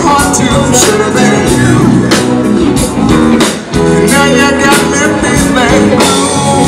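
Live rock band playing through PA speakers: electric guitars, keyboard and drum kit behind a lead vocal, with a brief break about three and a half seconds in.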